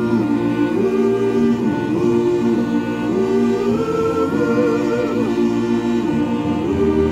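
A choir singing held notes over background music.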